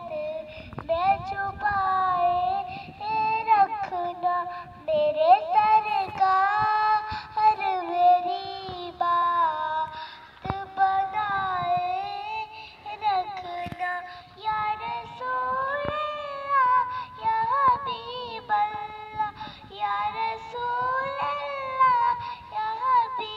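A young girl singing a naat, an Urdu devotional song in praise of the Prophet, solo into a handheld microphone, in long melodic phrases with ornamented turns and short breaths between them.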